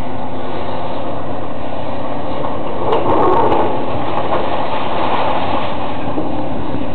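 Heavy demolition machinery with a diesel engine running steadily, with a louder crackling stretch about three seconds in.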